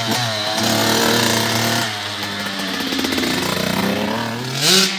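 Small dirt bike engine running as it is ridden, its pitch rising and falling with the throttle, with a sharp rev near the end.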